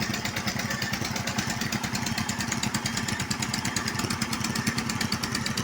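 Water-well drilling rig running steadily, its motor drive going at a fast, even beat.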